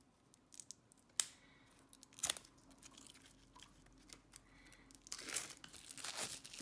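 Clear plastic shrink-wrap crinkling and tearing as it is peeled off a deck of cards: a few sharp crackles first, then denser, louder crinkling near the end.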